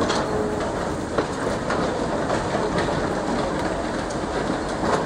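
Several excavators working a wreck site: a steady, heavy machine noise with a few scattered sharp knocks of metal.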